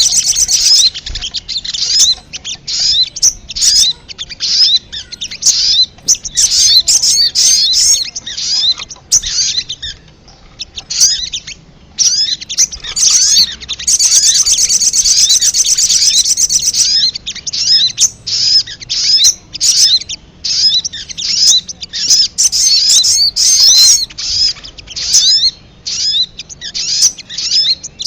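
Sogon sunbirds (sogok ontong) calling, a rapid, high-pitched run of chirps and trills. The chirping thins to a few scattered notes about a third of the way in, then comes back dense. This is a recorded lure call, used to draw wild sogon in for trapping.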